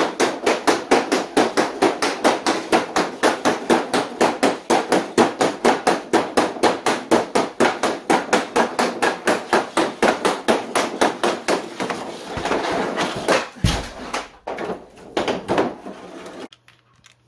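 Rapid stickhandling: a hockey stick blade knocking the puck back and forth in a quick, even rhythm of about five knocks a second. Near the end the rhythm breaks into a noisy stretch with one heavy thump and a few scattered knocks.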